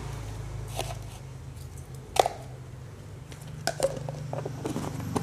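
A plastic salt jar being handled and its lid put back on: a few sharp plastic clicks and taps, the loudest about two seconds in, then a quicker run of clicks near the end as the lid goes on. A steady low hum runs underneath.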